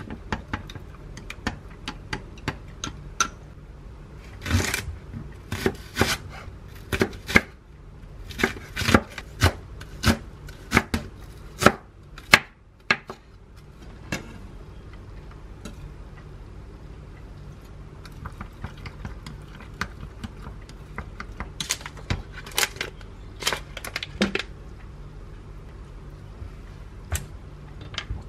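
Wooden chopsticks clinking against a glass mug as batter is stirred, then a kitchen knife chopping vegetables on a wooden cutting board in runs of quick, sharp strokes with short pauses between.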